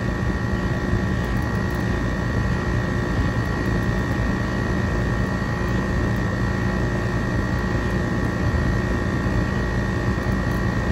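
Trane R410A central air conditioner's outdoor condensing unit running steadily, a low hum with a steady high whine over it. Its compressor is working against a closed liquid line service valve in a pump-down test and barely pulls the pressure down: it is not compressing, which the technician takes for a dead compressor.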